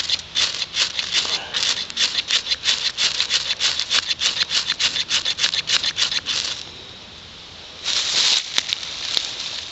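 Fire steel scraped hard and fast with a knife, about five scraping strikes a second, throwing heavy sparks onto a Ganoderma shelf mushroom to light it as tinder. The strikes stop about six and a half seconds in, and a brief hiss of air comes near the end.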